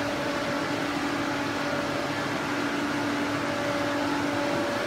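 Steady machine hum over an even hiss from a running food retort sterilizer and its equipment, with no change in pitch or level.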